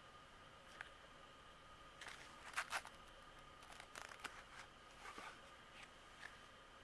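Near silence with faint, scattered rustles and clicks of photo album pages being handled, over a faint steady hum.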